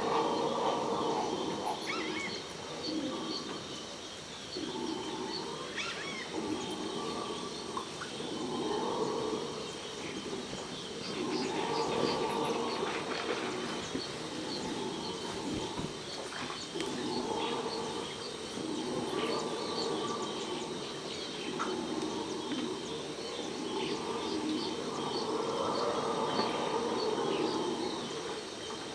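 Red howler monkeys howling in chorus: a deep, hoarse drone that swells and fades every two or three seconds. Scattered bird chirps and a thin, steady high tone sit above it.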